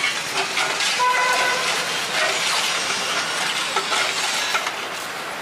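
Steady roadside traffic noise, with a few brief tones and faint clicks over it.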